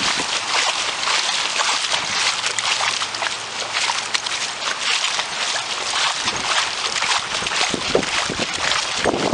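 Legs wading through floodwater: continuous splashing and sloshing of water around each stride.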